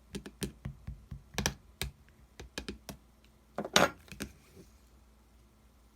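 Slime being pressed and poked, making a run of sharp clicks and pops, with a longer, louder crackling squish a little before four seconds in.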